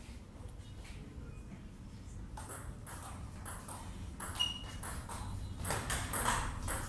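Table tennis ball clicking against the bats and the table in a rally, with quick sharp hits starting about two seconds in.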